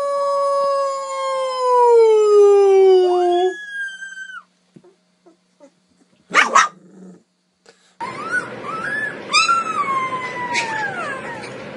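A puppy howls in one long, slowly falling note for about three and a half seconds, breaking into a brief higher cry at the end, and a single sharp yelp follows a few seconds later. About eight seconds in, a husky puppy howls and yowls in wavering, up-and-down notes over a steady hiss.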